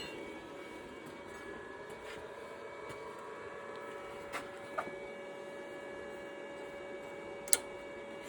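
A steady low-level machine hum holding several even tones, with a few sharp clicks. The loudest click comes about seven and a half seconds in.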